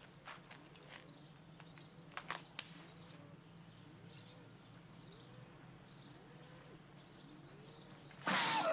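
Faint outdoor ambience with distant birds calling, then near the end a single loud film punch sound effect, a sharp smack of a fist blow.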